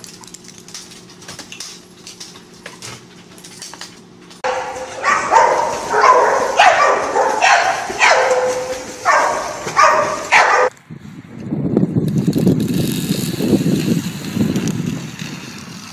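A dog barking, a run of about ten loud barks starting a few seconds in and stopping suddenly near eleven seconds, with splashing dogs in a pool. Before it there are faint clicks and a low hum; after it there is a steady low rumbling noise.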